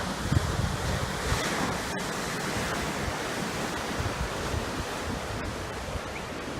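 Atlantic surf breaking over granite rocks, a continuous rush of surging and draining water that swells about a second in as a wave breaks into foam and spray. Wind buffets the microphone in low thumps.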